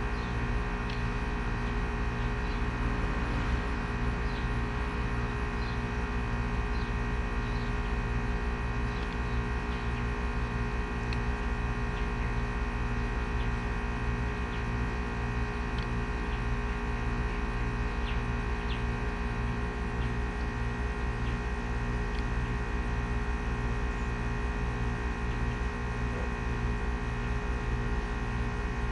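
A steady electrical or mechanical hum made of many even tones, unchanging in level, with faint short high chirps scattered through it.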